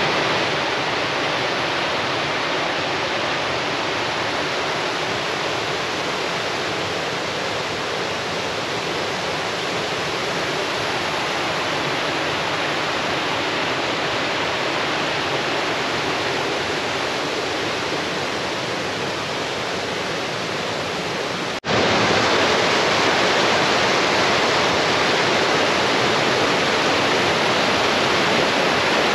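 Steady rushing of flowing water. It breaks off for an instant about three-quarters of the way through and comes back slightly louder.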